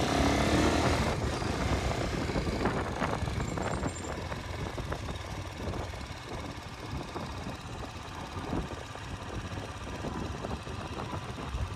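Motor vehicle engine running steadily: a low rumble under a rushing hiss, gradually getting quieter.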